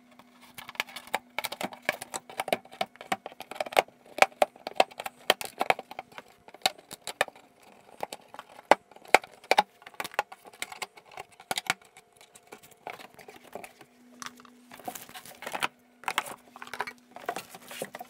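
Cardboard carton and packaging being handled: the box opened and its cardboard and plastic wrapping pulled about, giving a dense run of irregular rustles, crackles and knocks.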